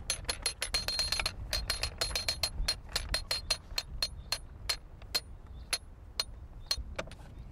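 Ratchet and pawl on the windlass of a replica Roman scorpion ballista clicking with a metallic ring as the windlass is wound to draw back the bowstring. The clicks come fast at first, slow to about two a second, and stop near the end: the machine is being cocked for a shot.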